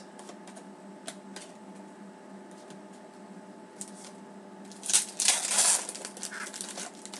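Foil wrapper of a Panini Zenith hockey card pack being handled and torn open, with a loud crinkling rustle about five seconds in. Before it come a few light clicks of cards being set down.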